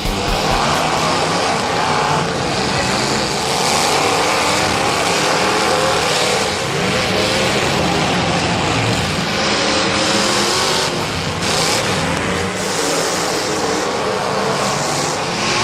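Several race car engines running loudly at speed, with cars passing and engines revving.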